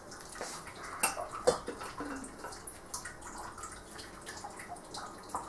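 Thin stream of distillate trickling from a moonshine still's outlet into a glass jar, with a few light clicks of the jar and its lid being handled, the clearest about a second in and again half a second later.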